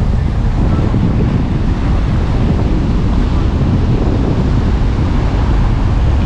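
Steady rushing of wind buffeting the microphone over surf washing on a rocky shore, heaviest in the low rumble.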